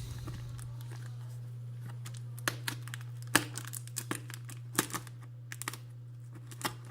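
A postal parcel being opened by hand: scattered crinkles and sharp clicks of packaging being handled and torn, over a steady low hum.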